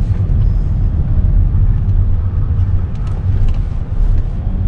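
Hyundai Sonata running at working temperature, heard from inside the cabin as a steady low rumble. It is being listened to for odd noises after a fresh change of its 6-speed automatic gearbox oil.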